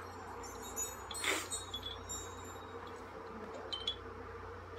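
Faint, sparse high chime-like tones from a quiet film soundtrack, with a soft rush about a second in and a few light ticks near the end, over a steady low hum.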